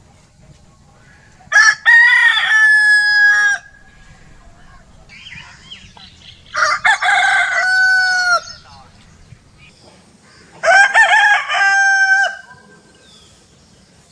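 Rooster crowing three times, each crow about two seconds long, a few seconds apart.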